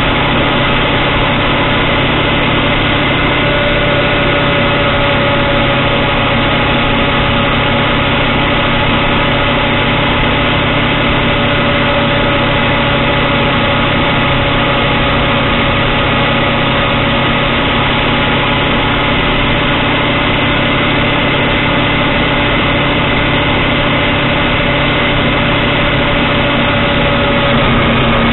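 Steady engine and road noise of a car driving at a constant pace, heard from inside the cabin, with a constant hum.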